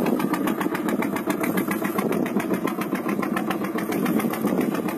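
A boat's engine running steadily at low revs, with a fast, even throb.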